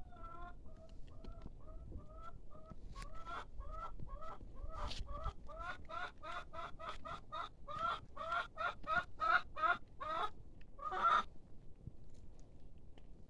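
Village chicken cackling: a run of short clucks that speeds up and grows louder, ending in one longer, loud squawk about eleven seconds in.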